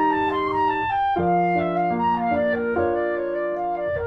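Instrumental background music: a melody of held notes, changing pitch every half second or so, over lower sustained notes.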